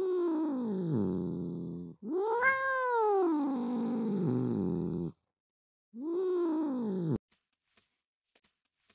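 Domestic cat meowing three times: long drawn-out meows that rise and then fall in pitch, the middle one the highest and longest. After the last meow come a few faint clicks.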